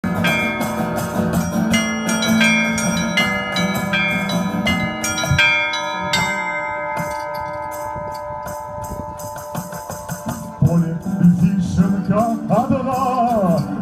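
Russian church bells ringing: a peal of bells struck in a steady rhythm, a little more than once a second, whose ringing then dies away from about six seconds in. Near the end a new peal starts and a voice begins singing with it.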